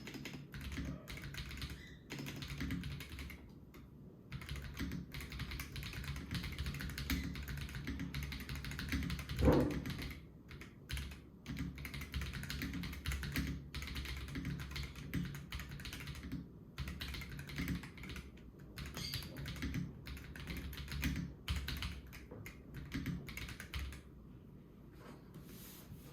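Typing on an Akko 5075S VIA gasket-mount mechanical keyboard with linear Akko Vintage White switches and PBT keycaps: a steady run of keystrokes, a little loud but soft, with one louder knock about nine and a half seconds in and lighter typing near the end.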